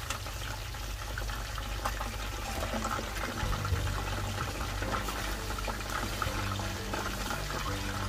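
Water running or being poured in a kitchen, over background music.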